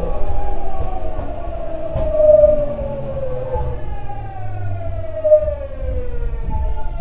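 Tokyu 9000 series Hitachi GTO-VVVF inverter and traction motors whining as the train brakes to a stop. The whine falls steadily in pitch, jumps back up about four seconds in and again near the end, over a low rumble of the wheels on the rails.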